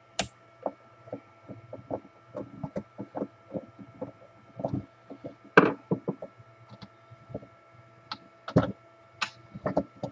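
Irregular clicks and knocks of hand tools working at a portable band saw's handle to pry it off, the loudest a few sharp knocks about halfway and near the end. A faint steady hum runs underneath.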